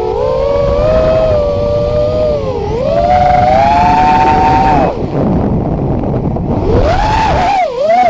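FPV quadcopter's brushless motors whining, heard from a camera mounted on the quad, over a rushing noise. The pitch rises and falls with the throttle: it climbs and holds high around three to five seconds in, sinks away, then climbs back and wavers quickly near the end.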